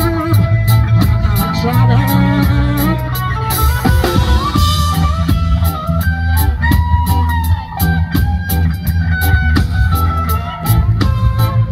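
Live band playing amplified through PA speakers: a drum kit keeping a steady beat under guitar and keyboard.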